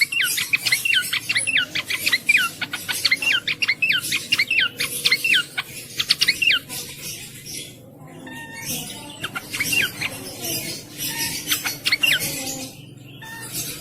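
Cingcoang (jongkangan) songbird singing: fast runs of short, high, sharply down-slurred notes over a steady hiss. The song breaks off briefly about eight seconds in, then starts a second, sparser run.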